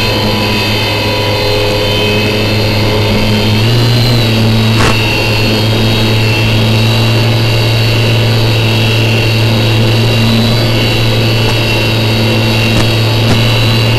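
Electric motor and propeller of an RC flying wing running steadily in flight, heard up close from the onboard camera, a low drone with a high whine above it. The pitch steps up slightly about four seconds in, and there is one sharp click just under five seconds in.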